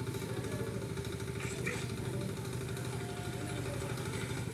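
A small engine idling steadily, an even low hum that does not change.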